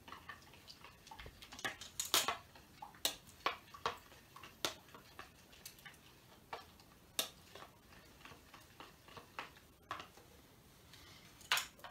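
Metal spoon clicking and tapping against a plastic mixing bowl while stirring glue as slime begins to form: irregular sharp clicks, roughly one or two a second, with a louder one near the end.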